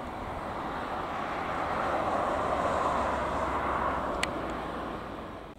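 Airbus A350-900 with Rolls-Royce Trent XWB turbofans running at high power as it rolls along the runway: a steady rushing jet noise that swells and then eases slightly.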